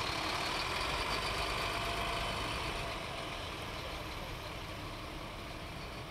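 Fire engine running and driving away, its engine sound getting quieter about halfway through.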